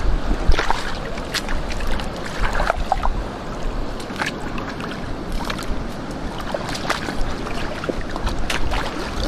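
Rubber boots wading through shallow seawater over stones, with irregular splashes and sloshes as the feet move through the water.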